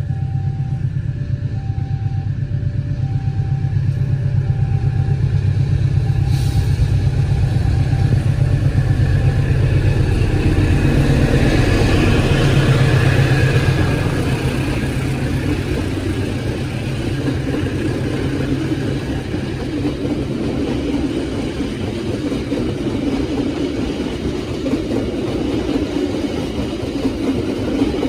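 CC 206 diesel-electric locomotive running with a steady low engine drone as it hauls a train past. Rolling rumble swells about ten seconds in and carries on. A level-crossing alarm alternates two tones for the first several seconds.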